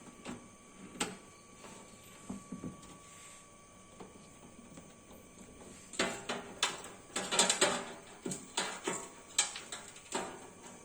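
Cables and connectors being handled and plugged in inside a desktop PC cabinet. A few scattered clicks come first, then a quick run of clicks and knocks starts about six seconds in.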